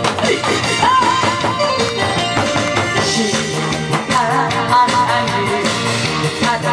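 A woman singing with heavy vibrato through a microphone and PA over loud accompanying music, with barrel-drum beats in the band.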